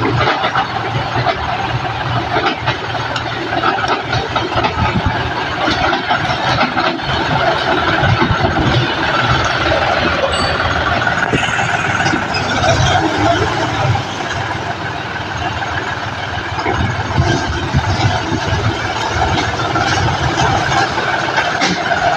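John Deere 5050D tractor's diesel engine running steadily as the tractor drives over a spread of maize cobs on a tarp.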